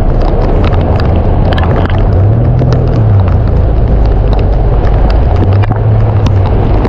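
Storm noise: strong wind rumbling on the microphone with rain drops ticking sharply and irregularly. A low hum swells briefly about two and a half seconds in.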